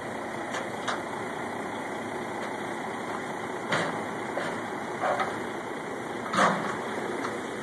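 A vehicle engine idling steadily, with a few sharp metal clanks and one heavier clunk about six and a half seconds in as a Chevrolet Volt rolls down the steel ramps of a car-carrier trailer.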